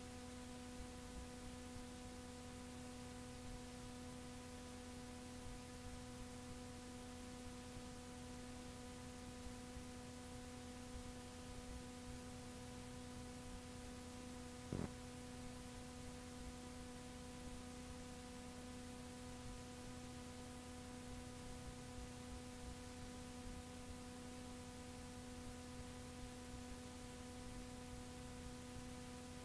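Blank, unrecorded stretch of a digitised cassette tape: faint steady tape hiss under an electrical hum with several overtones, broken by a single click about halfway through.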